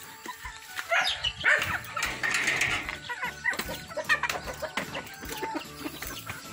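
Free-range chickens clucking and calling in short, bending calls, with a short burst of rustling about two seconds in.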